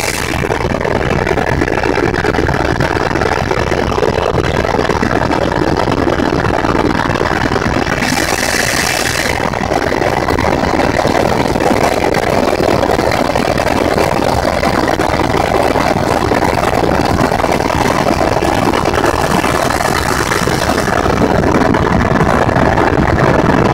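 Helicopter's turbine engine and rotor running steadily, heard from inside the cabin: a loud, even drone with a thin high whine over it. The hiss briefly grows louder a little after eight seconds.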